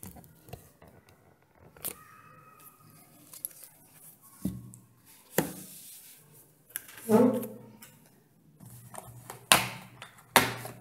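Handling noise: scattered sharp clicks and knocks as the recording phone is repositioned and a leather sandal is picked at and moved on a cloth, with one short voice sound about two-thirds of the way through.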